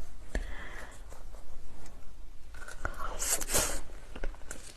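Close-miked eating sounds during a spicy-food mukbang: scattered mouth clicks and smacks, with a short hissing burst, like a slurp, about three seconds in.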